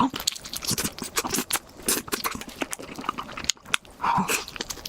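Close-miked mouth chewing a big bite of mushrooms: a dense run of crunchy clicks and smacks.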